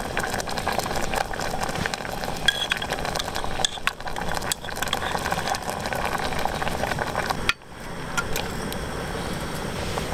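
Cooking on a camp stove: jarred rosé sauce being poured and stirred into a pot of pasta, with sizzling and light clinks of the jar and utensil against the metal pot over a steady rushing background.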